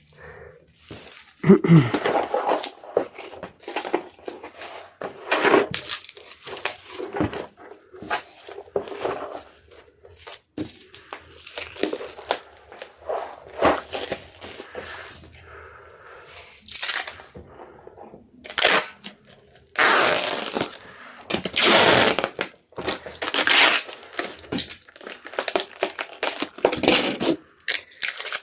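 Packing materials being handled: plastic wrap crinkling and rustling, with tearing sounds. The loudest, longer bursts come in the second half.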